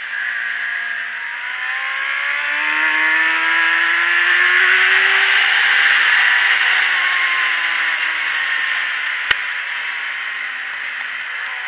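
Sport motorcycle at speed on track, heard from an onboard camera: heavy wind rush over the microphone with the engine note rising under acceleration for a few seconds, then slowly falling as the rider eases off. A single sharp click about nine seconds in.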